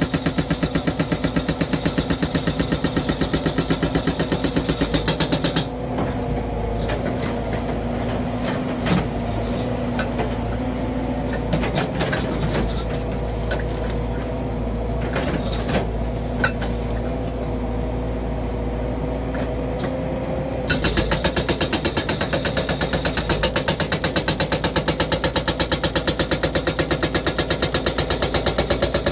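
An HWX68 SB40 silenced box-type hydraulic breaker on a small excavator hammers rock in rapid, even blows. The blows stop about six seconds in, leaving the excavator's engine running steadily with a few scattered knocks. The hammering starts again about two-thirds of the way through.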